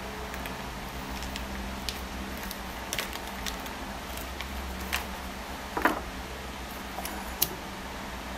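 Kitchen knife cutting a block of cheese into small squares: a few light, irregular taps as the blade comes down, the loudest about six seconds in, over a low steady hum.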